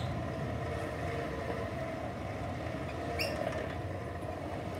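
Hand-cranked cast-iron blacksmith forge blower running, its fan and gearing whirring steadily as the handle is turned to blow air into the coals and stir them up. A brief high chirp comes about three seconds in.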